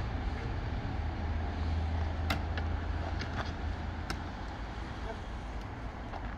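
Several short wooden knocks and creaks from a timber trellis arbour frame as it is shuffled into position, over a steady low rumble.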